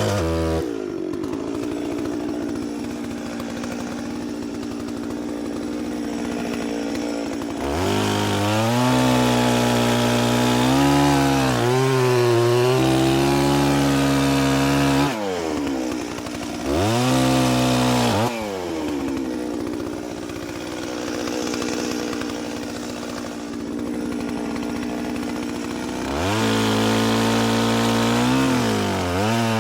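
Two-stroke chainsaw engine running, alternating between idle and throttle: revved up three times, once held for several seconds and once only briefly, dropping back to a steady idle between.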